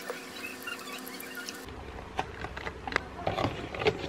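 Soft clicks and crinkles of a clear plastic salad bowl and its lid being handled, growing louder and denser in the last second or so.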